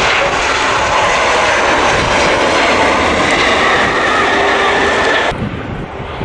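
Turbofan engines of a twin-engine narrowbody jet airliner passing close by: a loud roar with a faint whine slowly falling in pitch. About five seconds in the sound cuts off suddenly, leaving a quieter background.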